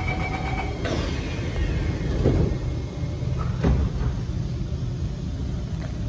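An SMRT Kawasaki C151 train's door warning tone ends and the doors shut with a knock about a second in, followed by a steady low rumble inside the train car.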